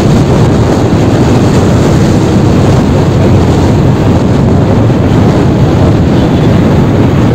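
Loud, steady wind buffeting the microphone on a moving motorcycle, mixed with road noise.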